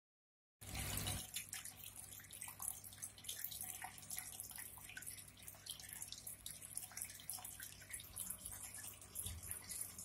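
Small indoor tabletop fountain: water trickling and dripping over stacked pebbles into a basin, with many small plinks of falling drops over a low steady hum.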